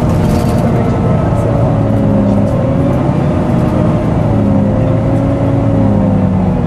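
Volvo B9TL double-decker's engine cooling fan whining loudly, hoover-like, over the engine and road noise, heard inside the bus under way. The whine wavers slightly in pitch and sags a little near the end.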